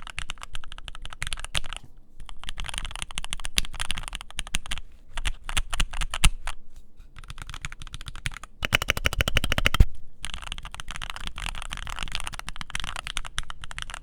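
Typing on a tape-modded aluminium Keychron Q3 mechanical keyboard with filmed and lubed Gateron Milky Yellow linear switches: fast runs of keystrokes in bursts, with brief pauses between them and a very quick flurry around the middle.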